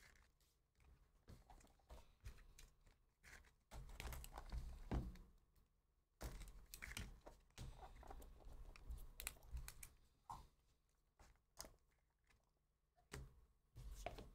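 Faint handling noise as a small cardboard trading-card box is slit open with a cutter and its lid pulled off: scattered light clicks, scrapes and rustles of cardboard and cards, with short quiet gaps between them.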